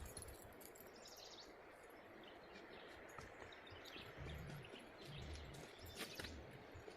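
Faint outdoor ambience: a low steady hiss with a few distant bird chirps, one about a second in and another near the end, and some soft low thumps in the second half.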